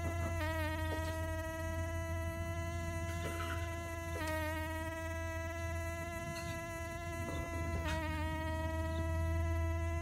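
Steady buzz of a bee's wings while a pair is mating, one even drone that wavers briefly in pitch near the start, about four seconds in and about eight seconds in.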